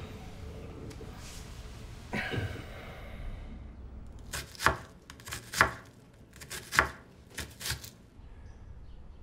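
Kitchen knife chopping food on a wooden cutting board: about eight sharp chops, several in quick pairs, over roughly three and a half seconds.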